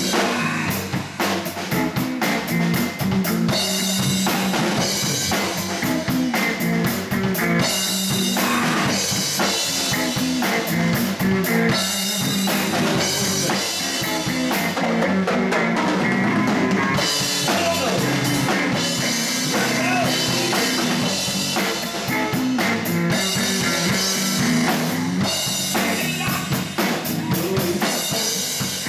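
Live blues band playing: electric bass, electric guitar and a Ludwig drum kit, with steady drum beats.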